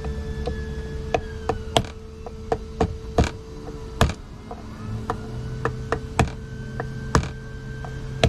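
Short, dry knocks of crab legs being struck on a wooden cutting board to crack the shells, about a dozen irregular blows, some sharper and louder than others.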